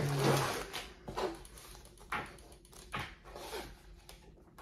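Plastic bags full of building bricks being set down and handled on a table: a thud, then crinkling plastic, followed by a few shorter rustles of plastic and paper.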